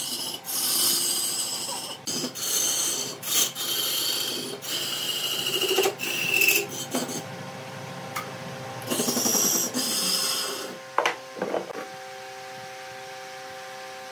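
Wood being scraped on a lathe: a run of rasping strokes about a second each as a tool works the spinning wood, then a pause and one more stroke. Two short knocks follow, then a steady machine hum near the end with no cutting.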